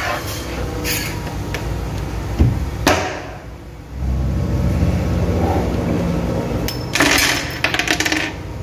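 Sharp knocks and clatter of a spirit level being handled and set against a wooden cabinet panel, several of them near the end, with a low steady rumble for a few seconds in the middle.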